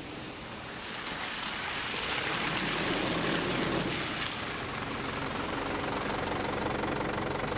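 Holden Rodeo ute driving over wet, muddy ground: engine running and tyres on the wet surface. It grows louder over the first two or three seconds, then holds steady.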